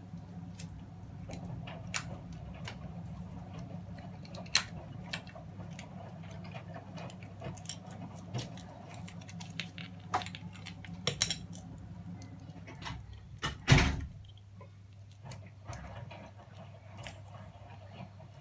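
Small metal parts clinking and tapping as old electrical plugs are taken apart by hand and the brass pieces tossed into a bucket, with scattered light clicks and one louder knock about two-thirds of the way through.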